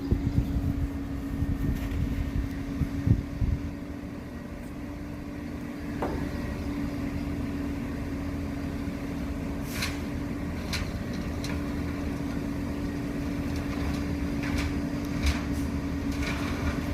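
Road-repair machinery running with a steady low engine hum at one pitch. A few bumps come in the first few seconds, and faint clicks and knocks come later.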